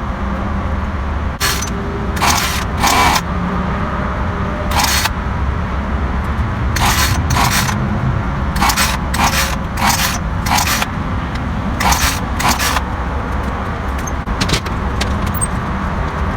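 Ryobi RY3716 38cc two-stroke chainsaw's recoil starter cord being yanked over and over, about fifteen short pulls, often two or three in quick succession, with the engine failing to start; a steady low rumble runs underneath.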